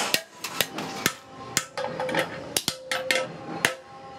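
Hammer blows on sheet metal: a series of sharp strikes about two a second, several ringing briefly after the hit.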